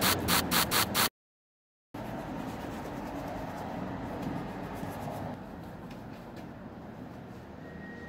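A trigger spray bottle misting cleaner in about five quick pumps, then, after a short break, a detailing brush scrubbing the plastic dashboard in a soft, steady scratching.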